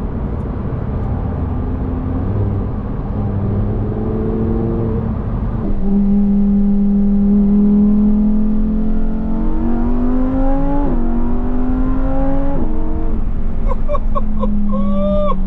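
Lamborghini Huracán STO's V10 heard from inside the cabin under hard acceleration. About six seconds in the engine gets louder and its note climbs steadily, then drops sharply a few times near the end as it shifts up through the gears.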